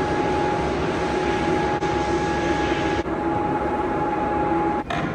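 Steady machinery hum in a large hall, with a constant high whine running through it; it dips for an instant twice and cuts off abruptly near the end.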